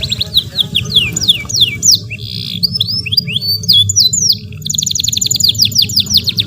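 Domestic canary singing a long, varied song: a fast high trill, then a run of whistles sweeping down in pitch, a short buzzy note about two seconds in, more quick slurred notes, and another rapid trill starting about two thirds of the way through.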